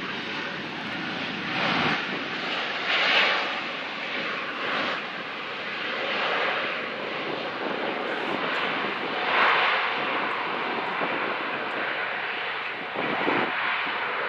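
Jet airliner engines running as aircraft roll along the runway, a steady noise that swells louder about three seconds in and again a little past halfway.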